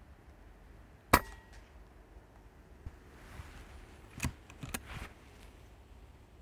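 A single air rifle shot about a second in: one sharp crack with a brief ring. About three seconds later come a couple of smaller clicks from the rifle's action being worked to load the next pellet.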